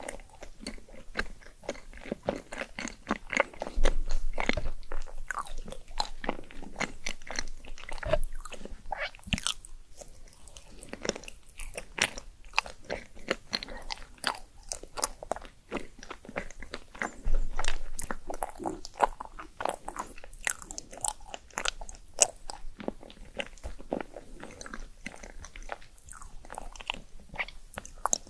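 Close-miked eating: biting and chewing with irregular crunching and wet mouth clicks, a few louder crunches about 4 seconds in and again about 17 seconds in.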